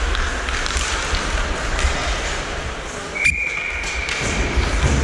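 Ice hockey play heard from the referee's helmet camera: skating noise and scattered knocks of sticks and puck over a low rumble. About three seconds in, a sharp click is followed by a steady high tone lasting nearly two seconds.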